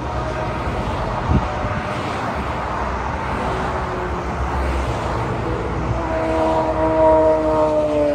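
Highway traffic going by close at hand: a steady rush of tyre and engine noise from passing cars and a truck. There is a single sharp knock about a second in. Near the end a passing vehicle's whine grows louder and slowly falls in pitch as it goes by.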